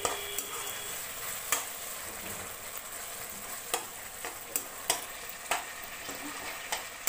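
Curry masala with tomato and onion sizzling in a metal kadhai while a metal slotted spoon stirs it. The spoon knocks and scrapes against the pan about six times.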